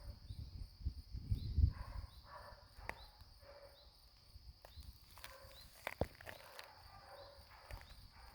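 Outdoor ambience: a steady high insect trill with small chirps repeating under a second apart, over low rumbling thumps like wind on the microphone or handling, with a few sharp clicks, the loudest about six seconds in.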